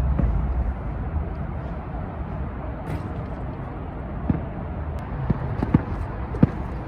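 A basketball bouncing on a hard outdoor court: several sharp thuds with a short ring, mostly in the second half, the loudest near the end. Under it, a steady low rumble of traffic.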